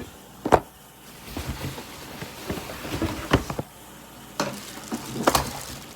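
A few sharp knocks and clatters of objects being handled and set down, with quiet handling noise in between.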